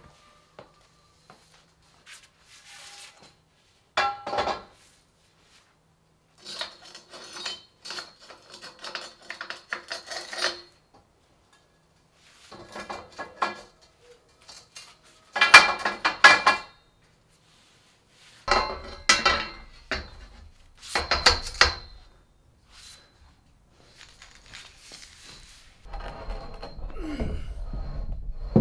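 Steel scaffold tower frames and tubes clanking and rattling in short bursts, separated by quiet gaps, as a man climbs and works on it. A low steady rumble comes in near the end.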